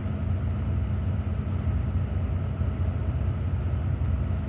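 Steady low engine rumble with a constant low hum.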